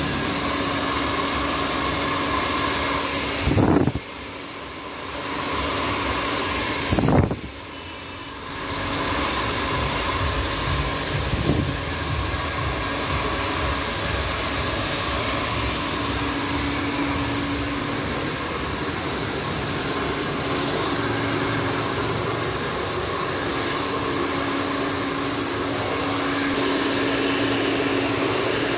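Handheld hair dryer blowing steadily, a rushing airflow with a faint motor hum. It drops away twice, about four and seven seconds in, and comes back up each time.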